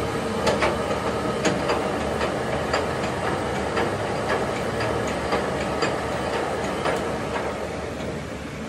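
Workshop lathe running with a differential gearbox housing spinning in its chuck: a steady machine noise with a light metallic tick repeating about twice a second.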